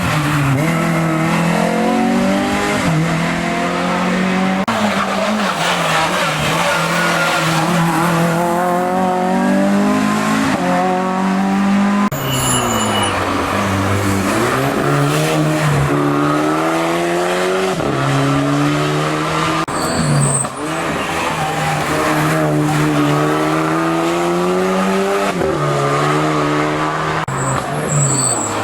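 Racing car engine driven hard up a mountain hill-climb course. Its pitch rises and drops back with each gear change, and it falls away to a low pitch about twelve seconds in as the car slows for a bend, then climbs again.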